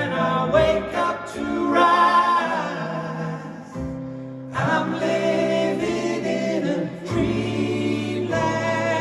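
Several voices singing a slow song in close harmony, holding long notes, with a short break for breath about four seconds in.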